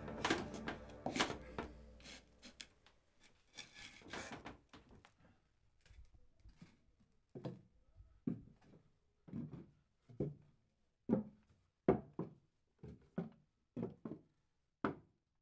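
Wooden clogs knocking on a tiled floor, then footsteps climbing a wooden staircase, one or two dull thuds a second. A fading trail of soft music is heard at the very start.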